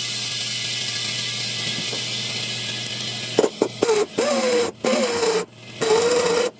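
Power tool working car-body sheet metal: a steady hissing run, then about four short bursts about a second long, each with a wavering whine, with brief stops between them.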